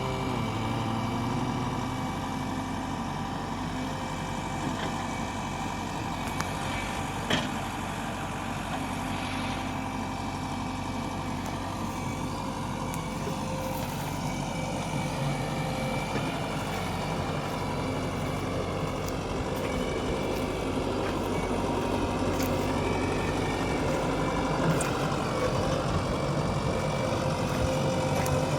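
Heavy diesel engine of a backhoe loader running steadily while it digs and loads mud, with a few sharp knocks.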